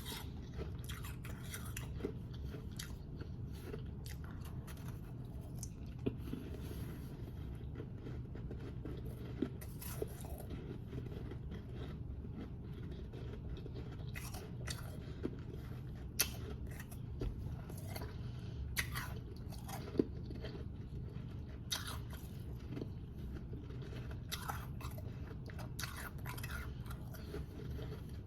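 A person biting and chewing powdery frozen ice close to the microphone, with irregular crisp crunches and crackles and a sharper bite every second or two, over a steady low hum.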